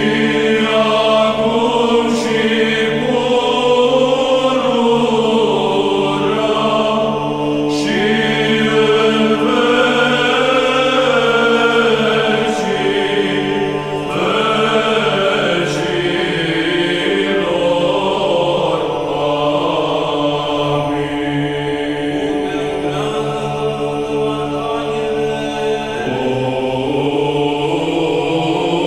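Background music of a choir chanting slow, drawn-out lines over a low held drone.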